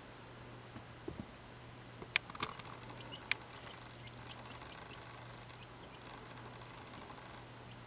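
Low steady incubator hum, with a few sharp clicks and taps between about two and three and a half seconds in, and fainter ticks after.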